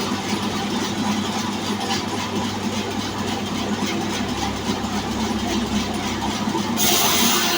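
Electric horizontal band sawmill running steadily with a low hum. About seven seconds in, a louder, brighter hiss starts suddenly.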